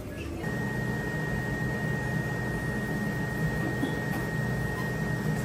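Laser hair removal machine running during a facial treatment session: a steady mechanical hum with a thin, steady high tone over it, starting about half a second in.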